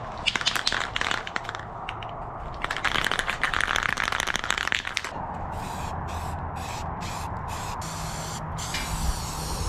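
Aerosol can of self-etching spray primer: a rattly clicking at first, then a long spray hiss and a run of short spray bursts.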